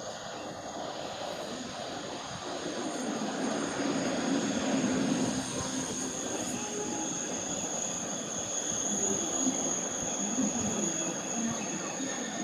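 A train running by on the rails, its rumble growing louder over the first few seconds and then holding steady.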